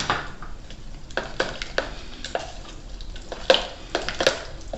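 Kitchen utensils clinking and knocking against kitchenware while a blender batter is prepared: a scattering of light separate knocks, the two sharpest near the end.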